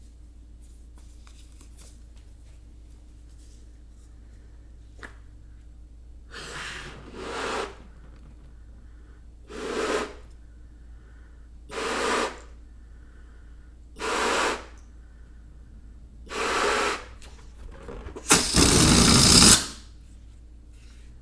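Air let out of a rubber balloon's neck in short hissing spurts, about six of them roughly two seconds apart, then a longer, louder release near the end.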